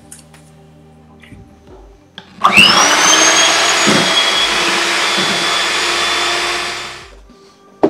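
Electric hand mixer whipping cake frosting in a glass bowl: the motor starts about two and a half seconds in with a short rising whine, runs steadily for about four seconds, then winds down and stops. A sharp click comes at the very end.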